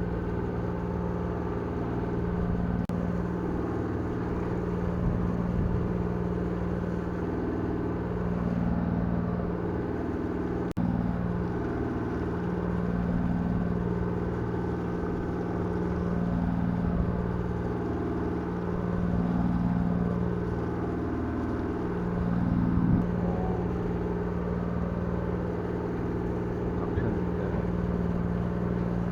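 The party boat's engine running with a steady low drone, its tone wavering up and down about every two and a half seconds.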